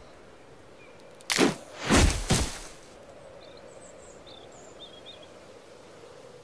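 Three quick whooshes in close succession about a second and a half in, followed by a few faint bird chirps.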